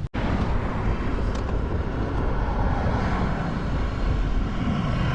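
Steady rushing noise of riding a bicycle, wind on the microphone mixed with road noise, after a brief dropout at the very start.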